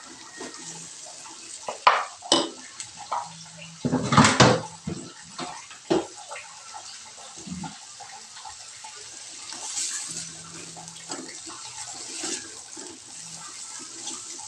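Shrimp, squid and chilies sizzling in a hot wok with a steady hiss, while a spatula scrapes and knocks against the pan as they are stirred, loudest about four seconds in.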